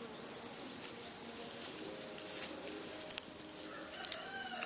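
Dry grass being handled and snapped, giving a few sharp crackles and rustles, over a steady high buzz of insects. A bird chirps near the end.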